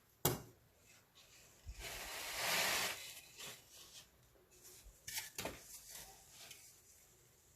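Baking soda being crushed and crumbled close up: a sharp crack just after the start, a longer gritty crunch about two to three seconds in, then scattered small crackles.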